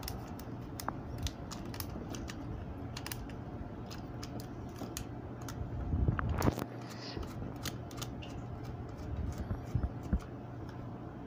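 Many small clicks and scrapes of a wire and a screwdriver being worked into the plastic screw terminals of an Entes MCB-20 time relay, with a louder knock about six seconds in, over a steady low hum.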